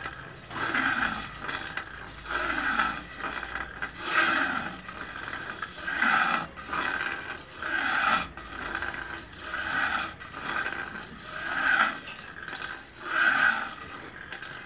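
A kukri's carbon-steel blade being sharpened by hand, with a steady series of rasping strokes of metal drawn against an abrasive, about one stroke every second or so.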